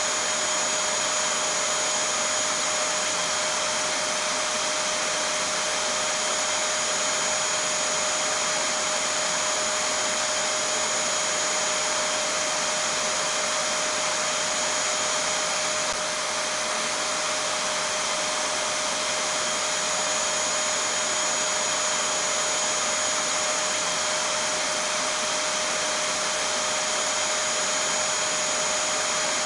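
Vacuum cleaner running steadily: an even rush of air with a constant motor whine over it, unchanging throughout.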